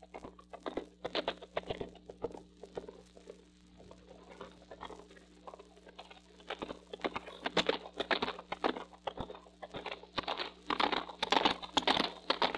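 Surface noise of a 1949 acetate transcription disc: dense crackling and pops over a steady low hum, the crackle growing louder and thicker about halfway through.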